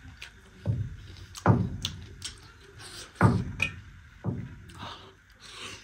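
Close-up eating sounds of a man eating rice by hand: faint mouth clicks and chewing, broken by four sudden dull thumps.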